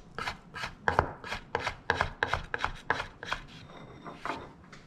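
Chef's knife dicing homemade bacon on a bamboo cutting board: quick knocks of the blade on the wood, about six or seven a second, for the first three and a half seconds, then a few softer knocks.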